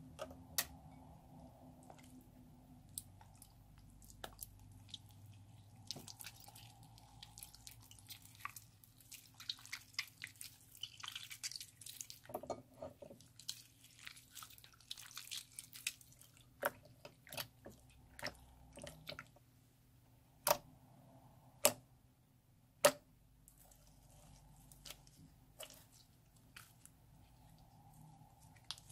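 Slime being kneaded, squeezed and stretched by hand: faint wet squishing with sticky clicks and small pops. About three-quarters of the way through come three sharp, louder pops a little over a second apart.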